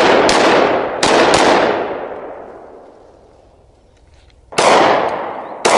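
Semi-automatic pistol firing: four sharp shots in quick pairs in the first second and a half, each trailing off in a long echo, then two more shots near the end.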